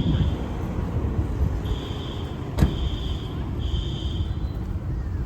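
Building fire alarm sounding a high electronic tone in short pulses, three in a row about two seconds in, over the steady low rumble of an idling engine. A single sharp knock comes about halfway through.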